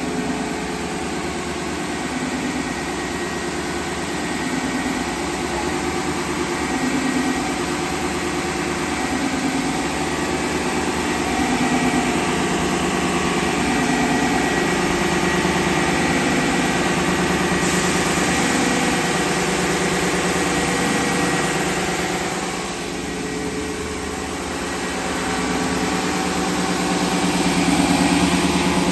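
UniteK Nice wide belt sander running with its dust extraction on: a steady hum of many tones. A hiss comes in about 18 seconds in, and the sound dips briefly in loudness around 23 seconds.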